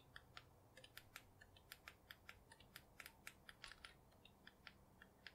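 Faint, irregular clicking of a computer mouse and keyboard, a few clicks a second, over a faint low hum.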